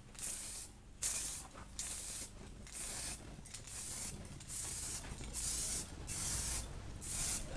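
Aerosol spray paint can hissing in short bursts, about nine in a row, laying a first coat of white paint on a folding bicycle frame.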